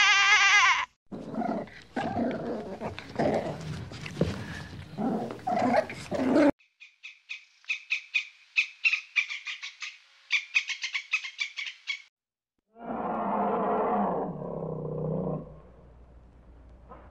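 A run of different animal calls: a pitched call ends in the first second, then a rough growling roar lasts about five seconds, then a fast, high chattering of rapid pulses lasts about five seconds, and a lower call follows near the end.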